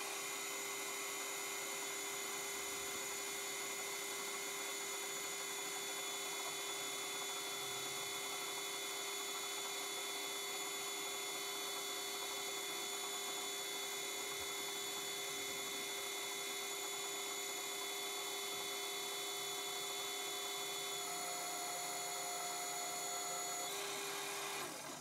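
Hafco AL320G metal lathe running steadily while turning down a round bar under carriage power feed: an even machine whine made of several held tones. The tones shift slightly near the end.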